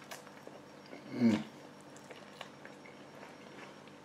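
A man's short vocal sound of enjoyment while eating, a falling 'mmm' about a second in, with faint small clicks before and after it.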